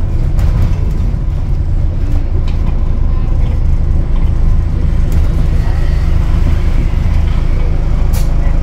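Hybrid double-decker bus heard from inside the saloon while under way: a steady, loud low drone of drivetrain and road noise, with a few sharp clicks and rattles, the last near the end.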